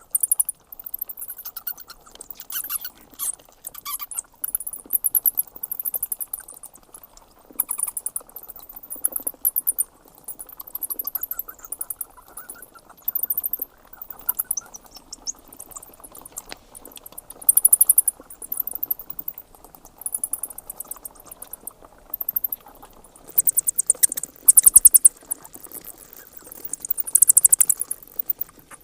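Bat calling: repeated bursts of rapid, very high-pitched clicks and chirps, each run lasting up to about a second, over a faint steady hiss.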